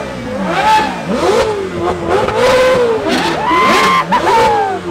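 Several Novitec-tuned Ferrari supercar engines revved hard together, their pitches climbing and dropping in repeated overlapping sweeps. About three and a half seconds in, one is held at the top against the rev limiter before falling away.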